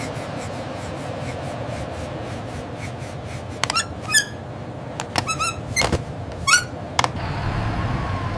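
Birds chirping: about half a dozen short, high chirps between three and a half and seven seconds in, over a steady background hum.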